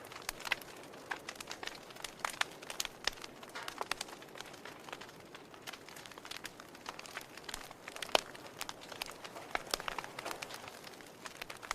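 Wood fire crackling in a fireplace: irregular sharp snaps and pops over a soft hiss, with one louder pop about eight seconds in.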